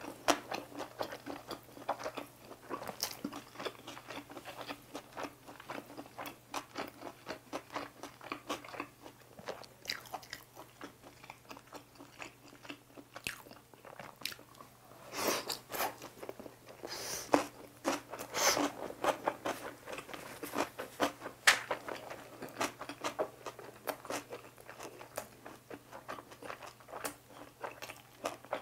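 Close-miked chewing of boiled pork belly with seasoned dried radish strips: a steady run of wet mouth clicks and crunches, louder in a few clusters past the halfway point.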